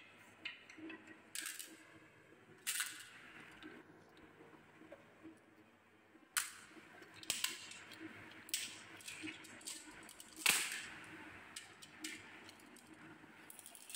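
Glass marbles clicking against one another and the plastic cage of a toy truck's trailer as they drop in: scattered sharp clicks, the loudest about ten seconds in.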